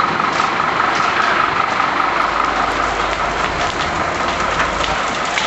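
Fire engine's motor running steadily, with a constant whine over a dense, even rumble.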